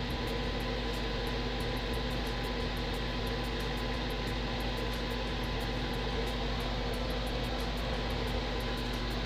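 Kotto desktop soldering fume extractor's fan running steadily: an even airy whirr with a faint steady hum, measuring about 76 dBA at the sound meter.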